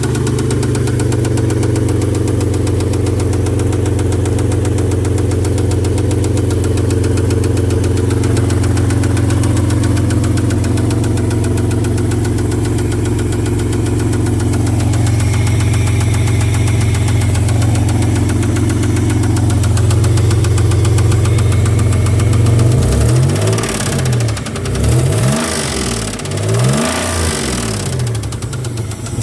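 1995 Mitsubishi 3000GT's 3.0-litre V6 idling steadily with a knock, then revved up and let back down several times near the end.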